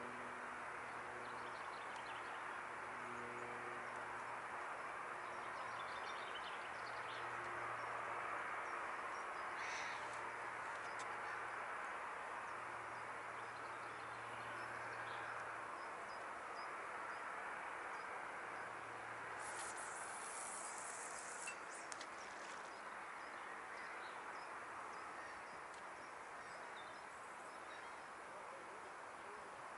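Faint outdoor ambience: a steady hiss with light bird chirps, and a low hum that comes and goes through the first two-thirds. A brief high hiss about two-thirds of the way through.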